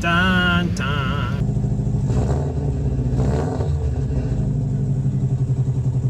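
A car engine running with a deep, pulsing note and a couple of brief revs, after a short wavering voice at the start.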